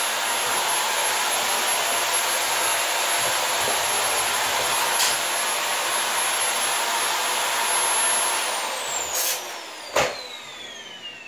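Hoover Air Lite vacuum cleaner running with its brush roll off: a steady high motor whine and rushing air as it is pushed forward and back over a dirty floor. About eight seconds in it is switched off, and the whine falls steadily as the motor spins down. A few sharp knocks come near the end.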